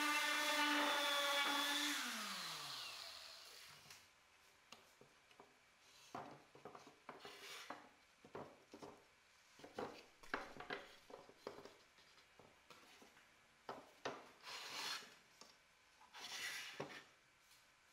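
Random orbital sander running on wooden slats with a steady hum, switched off about two seconds in and winding down with a falling pitch. After it stops come a series of light wooden knocks and rubs as the slatted wooden panels are moved and stacked.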